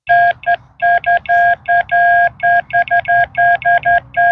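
Baofeng UV-5R handheld radio sending a hand-keyed Morse code tone: a steady beep switched on and off in a quick, uneven run of short and long beeps.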